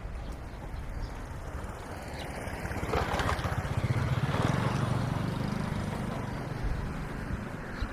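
A motor engine passing close by, growing louder about three seconds in and fading away again over the next few seconds.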